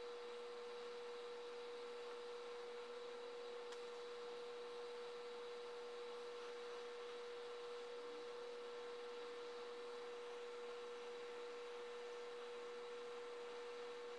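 A steady humming tone held at one pitch, with a faint hiss underneath.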